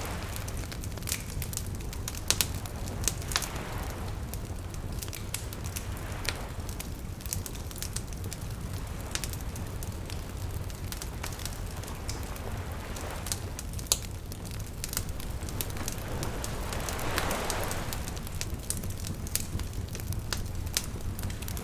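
Wood fire crackling, with irregular sharp pops, over small waves lapping that swell and fade every few seconds.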